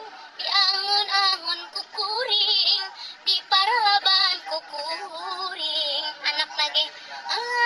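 A woman singing a Sundanese-language song over music, her notes sliding and wavering.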